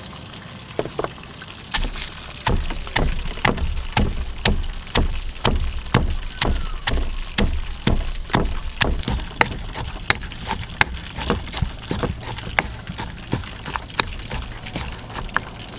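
Stone pestle pounding garlic, red chillies and salt in a heavy stone mortar: steady dull knocks of stone on stone, about two strikes a second, starting a second or two in.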